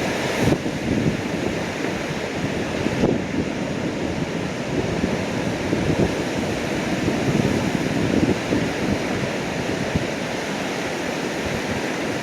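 Sea waves surging and breaking against rocky sea cliffs, with wind buffeting the microphone in irregular gusts.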